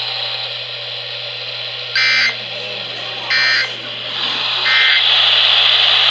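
Emergency Alert System end-of-message data tones: three short buzzy digital bursts about 1.35 s apart over radio static. The static grows louder about four seconds in and cuts off abruptly near the end.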